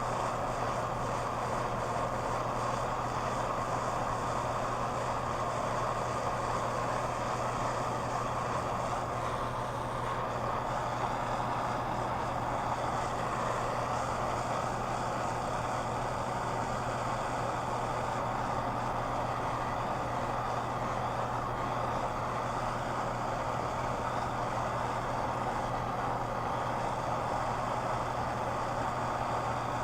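Gas torch flame burning with a steady hiss while heating a pipe joint for soldering.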